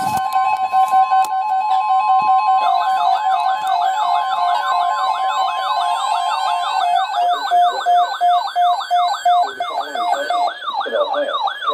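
Weather alert radios sounding their alarms together: a steady alert tone with a pulsing beep under it, joined about two and a half seconds in by a fast up-and-down siren warble, about two and a half sweeps a second. The steady tone stops about halfway through, and a broadcast voice begins under the siren near the end.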